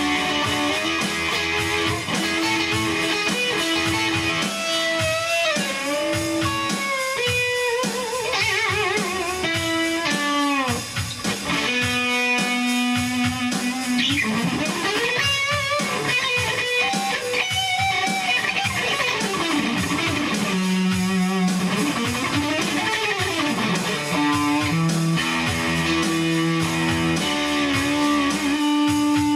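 Guitar-led instrumental music, with many notes that bend and slide in pitch.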